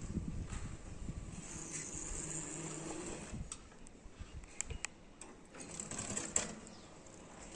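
Drive motor of a motorized sliding rooftop running steadily, then stopping about three seconds in. A few sharp clicks and knocks follow, the loudest near the end.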